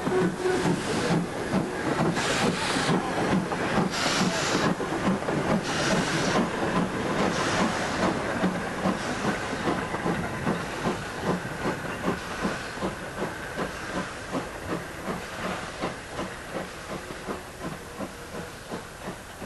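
Steam locomotive working slowly, a steady run of exhaust chuffs with loud blasts of steam hiss in the first half, growing steadily fainter.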